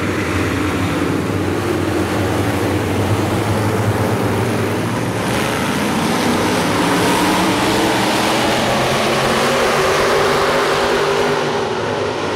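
Hobby-class dirt track stock cars racing as a pack, many engines running together with their pitch rising and falling as the cars accelerate and go through the turns.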